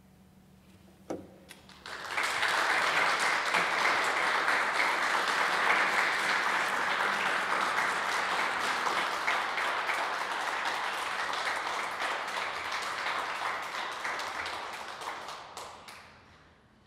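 Audience applauding, starting about two seconds in and fading out near the end, after a single short knock.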